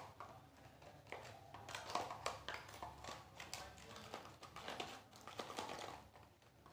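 A spoon clinking and scraping inside a glass jar as white powder is scooped out: a string of light, irregular taps.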